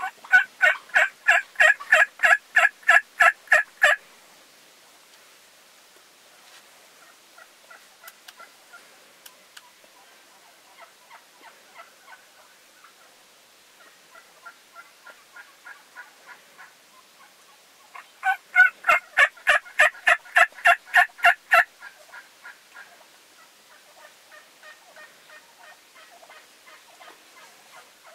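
Turkey yelping: a long run of loud, evenly spaced yelps, about four a second for some four seconds, then a second run about eighteen seconds in. Fainter scattered turkey calls come between the two runs.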